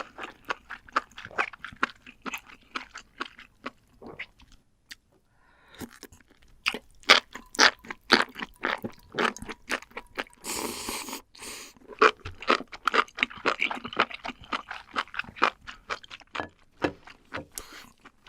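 Close-miked eating: crunching and chewing in quick, irregular succession, with a brief pause about five seconds in and a short rushing noise a little after the middle.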